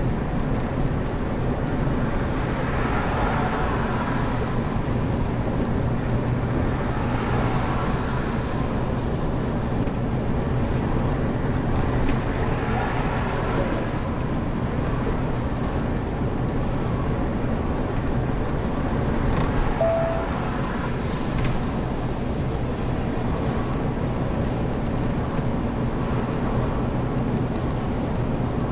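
Heavy motorhome driving: steady engine hum and road noise, swelling a few times. A brief single beep sounds about two-thirds of the way in.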